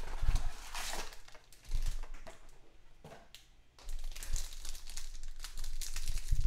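Foil trading-card pack wrappers being torn open and crinkled by hand, in bursts, with a quieter pause in the middle before the crinkling starts again.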